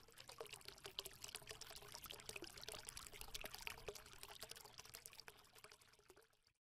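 Faint trickling, pouring-water sound effect: a dense run of tiny crackles that dies away about six seconds in.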